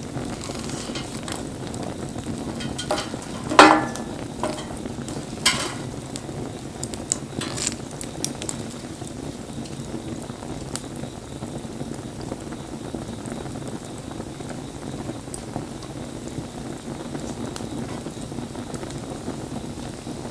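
Wood fire burning with a steady crackle and hiss, and a few sharp pops in the first half, the loudest about three and a half seconds in.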